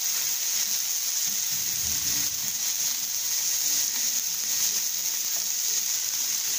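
Pointed gourd strips and sliced onion frying in oil in a black wok, with a steady sizzle. There is a soft low bump about two seconds in.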